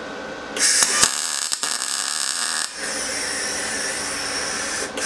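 MIG welder arc crackling and buzzing as a steel rear bar is welded, striking about half a second in, with a short break near the middle before a second run.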